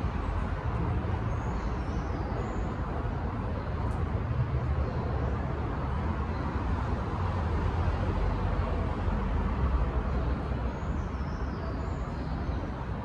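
Steady outdoor background rumble, strongest in the low end, with faint high chirps about two seconds in and again near the end.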